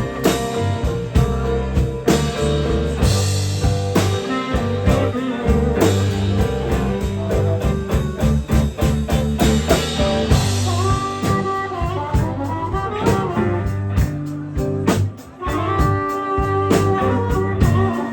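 Live blues band playing a slow blues: an electric guitar lead with notes bent up and down over bass and drums.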